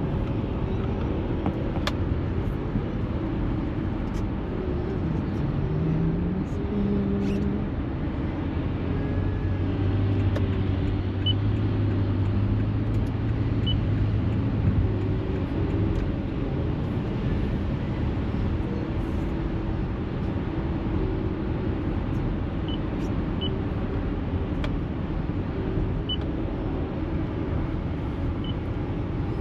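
Car driving: a steady road and engine rumble heard from inside the cabin, with a low hum rising for a few seconds about a third of the way in.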